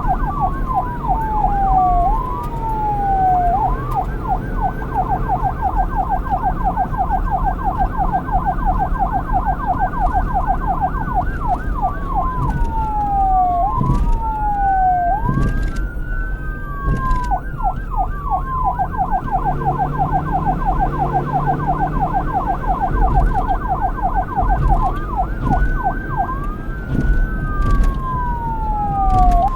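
Police car electronic siren switching back and forth between a slow wail and a rapid yelp: three spells of long rising and falling sweeps, with long stretches of fast warbling between them. A low rumble of engine or traffic runs underneath.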